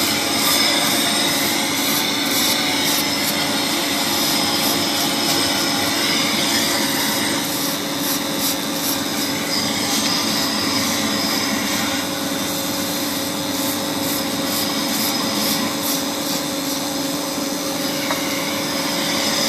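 Polygon pole welding machine running a weld: a steady mechanical hum and rushing noise with a light irregular crackle.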